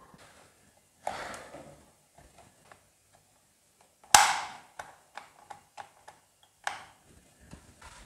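Handling noise from reassembling a plastic pedestal fan: scattered light clicks and taps of the plastic housing and parts, with a louder short clatter about four seconds in.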